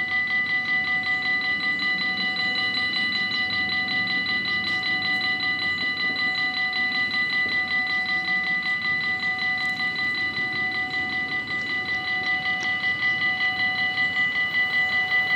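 Dutch level-crossing bells at an automatic half-barrier crossing, ringing continuously with a fast, even pulsing of several clear tones that warns of an approaching train. Near the end the rush of the approaching train begins to rise underneath.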